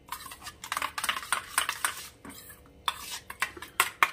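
A metal spoon stirring thick curd and spice paste in a stainless steel bowl, scraping and clinking against the bowl's sides in quick, irregular strokes.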